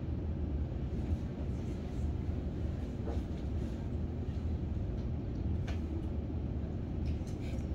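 Steady low rumble of room noise, with a few faint clicks of a computer mouse.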